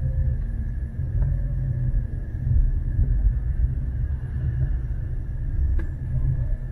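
Low, steady rumble of city street ambience picked up by a walking handheld camera, with a single sharp click a little before six seconds in.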